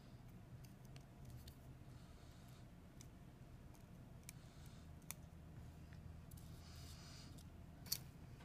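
Near silence with a few faint, sharp clicks and a brief light scrape of small repair tools handling iPhone 6 parts while the home button is being removed. The loudest click comes near the end, over a faint low steady hum.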